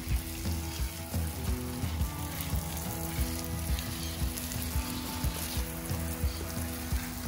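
Water spray hissing steadily onto soil and plants as a vegetable garden is watered.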